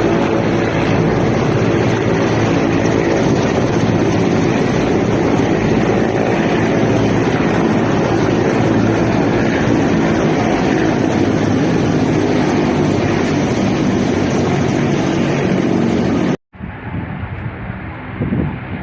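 Steady, loud drone of military aircraft engines, with a faint low hum of even tones inside the noise. About three-quarters of the way through it cuts off abruptly, and a quieter, duller stretch of aircraft noise follows.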